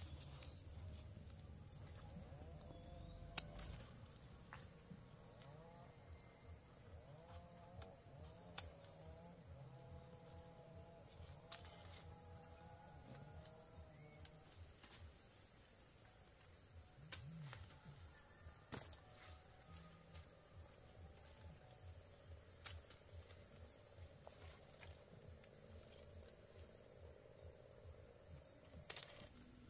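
Faint, steady chirring of insects with a pulsing trill, broken by a few sharp clicks or knocks, the loudest about three seconds in.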